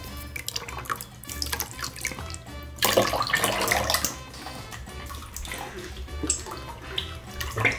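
Liquid slime activator squeezed from plastic bottles, trickling and dripping into plastic bowls of glue mixture, over background music.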